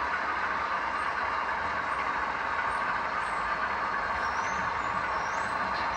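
Steady, even noise like a hiss or rush, at an unchanging level, with a few faint short high chirps about four to five and a half seconds in.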